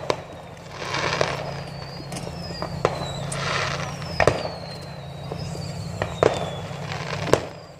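Fireworks going off: about five sharp bangs spaced a second or two apart, bursts of crackling between them, and high whistles that fall slowly in pitch.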